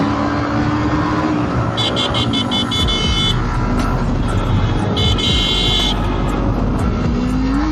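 Motorcycle engine running as it rides along, with a string of short horn beeps about two seconds in and a longer horn blast around five seconds.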